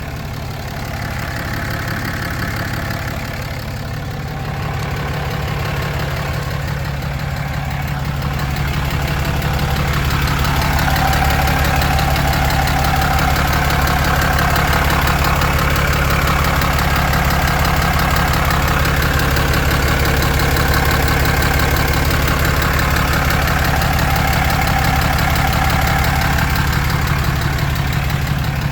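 2016 Cummins 6.7-litre turbo-diesel inline-six idling, with a knocking and clicking from under the engine. It grows louder about nine seconds in.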